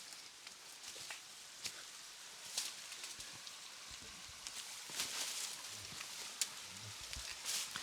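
Footsteps scuffing and crunching irregularly over river stones and leaf litter, with a faint steady rush of river water behind them.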